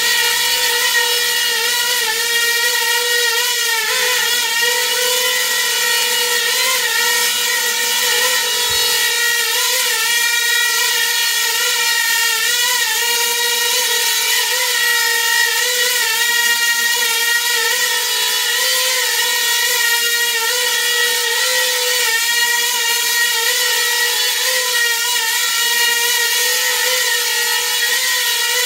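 Small coaxial copter's motors and propellers whining steadily in a hover. The high buzzing pitch wobbles briefly every second or so, as the ArduPilot AutoTune twitches the craft to tune its control loops.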